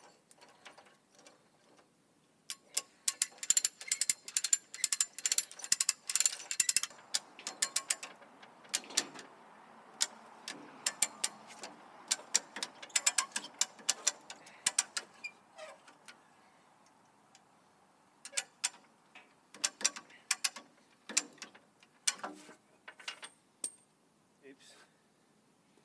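Chain come-along's ratchet and pawl clicking in rapid runs as its lever is pumped back and forth under load. There is a dense run early on, more runs after it, a pause of a few seconds, and then further bursts of clicks.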